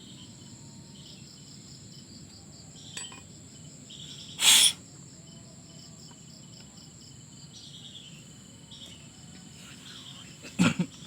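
Insects chirping steadily in the background, with a light click about three seconds in and a short, loud hiss lasting about a quarter of a second, a little over four seconds in. A voice-like sound comes just before the end.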